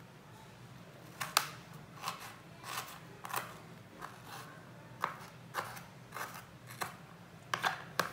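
Kitchen knife chopping a red onion on a plate: a dozen or so sharp taps of the blade, roughly two a second, starting about a second in.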